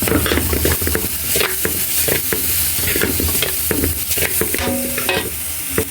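Fried rice sizzling in hot oil in a wok while a spatula stirs and scrapes it, with frequent short scrapes and clicks against the pan over a steady sizzle. Soy sauce has just gone in.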